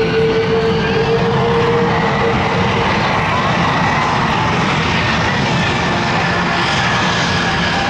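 Aircraft engine noise, loud and steady, with a steady hum that fades out about three seconds in and a faint high whine after it.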